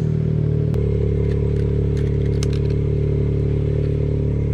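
A Suzuki motorcycle engine and a Daihatsu Mira Turbo's 660cc three-cylinder engine idling together as a steady engine hum. There is a click just under a second in, where the engine note shifts slightly.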